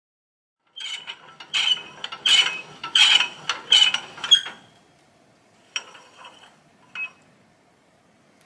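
Hand-cranked rack-and-pinion tipping winch of a 1959 Welger ZK 80 F trailer, its gears and pawl clicking and clanking as the tipper bed is raised. About a second in, a run of sharp metallic clanks comes roughly every two-thirds of a second, then it eases to a few fainter single clicks.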